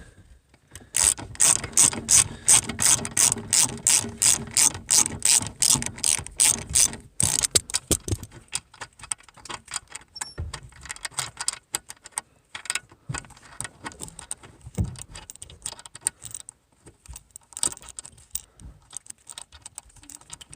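Hand ratchet wrench clicking as bolts are unscrewed to take out a van's back seat: a steady run of about four clicks a second for some six seconds, then quicker, uneven clicking.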